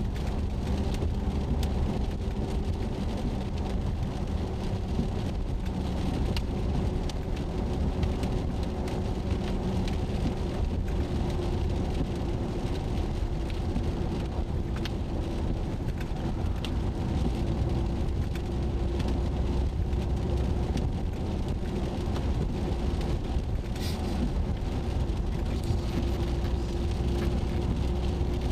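Inside a moving car: steady engine and road noise with a constant drone, and scattered raindrops ticking on the roof and windshield.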